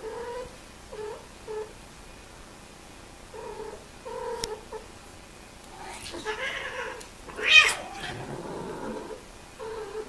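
Cats mating: a string of short, low yowls, then rising cries and, about seven and a half seconds in, one loud, harsh screech, the female's typical cry as mating ends, trailing off in a lower cry.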